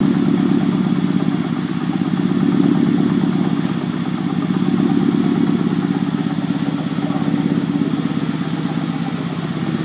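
Volkswagen Mk5 GTI's 2.0-litre turbocharged four-cylinder TSI engine idling steadily with an even, fast pulse. The owner is unsure whether a bad turbo or a failing high-pressure fuel pump is behind the white smoke.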